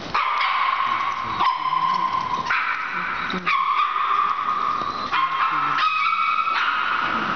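Several puppies barking and yipping as they play, with people's voices in the room.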